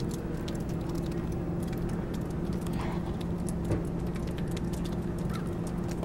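Steady snowy-day ambience: an even hiss with a constant low hum and scattered faint ticks.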